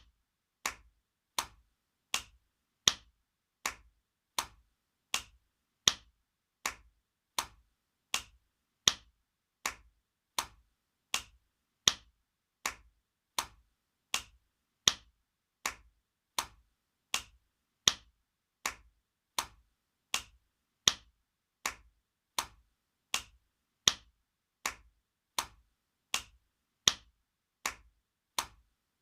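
Spanking sound effect on a loop: a sharp slap repeated at an even pace, about four slaps every three seconds. Every fourth slap is louder than the rest.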